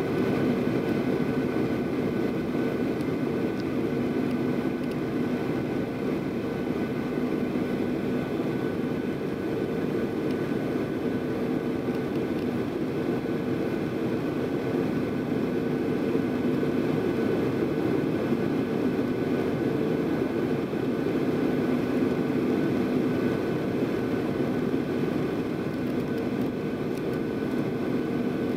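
Cabin noise inside a Boeing 737-800 descending toward landing: the steady drone of its CFM56-7B turbofans and airflow, with two steady low hums running through it.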